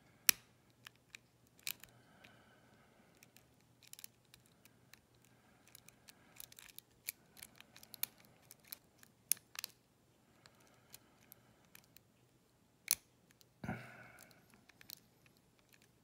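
Lock pick and tension wrench working the pin tumblers of an Arrow (Assa Abloy) challenge lock: light metallic clicks and ticks at irregular intervals, with a faint steady hum underneath.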